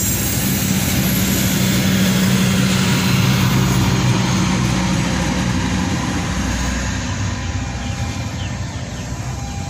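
Passenger train passing at speed: a steady rumble of coaches on the rails, with the steady drone of the train's generator power car strongest in the middle. The sound eases off near the end as the train draws away.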